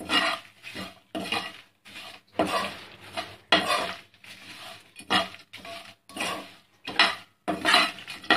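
Metal spatula scraping and stirring grated dry coconut, peanuts and dried red chillies around a nonstick pan as they dry-roast, in irregular strokes about two a second.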